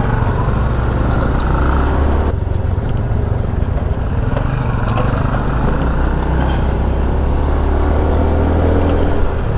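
Motorcycle engine running with a steady low rumble as the bike rides off along a road, heard from the rider's own bike.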